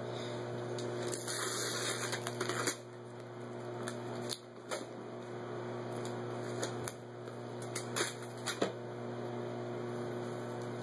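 Wrapping paper rustling and crinkling as small hands tear it off a cardboard gift box, with a longer stretch of rustling about a second in and scattered light taps and crackles, over a steady low hum.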